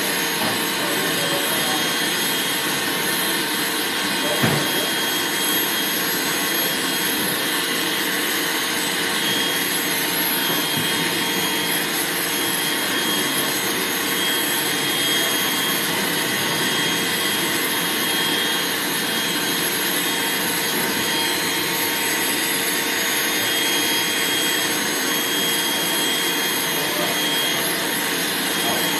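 Dog grooming dryer blowing steadily: a constant rush of air with a steady high whine from the motor. A single short knock about four and a half seconds in.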